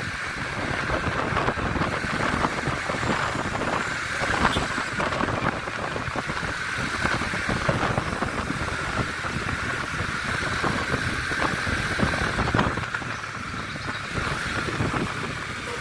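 Motor vehicle noise: engines running, with steady road and traffic sound and no horn playing.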